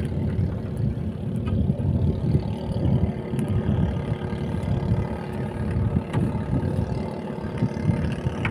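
A motor running steadily: a low, uneven rumble with a faint steady hum above it.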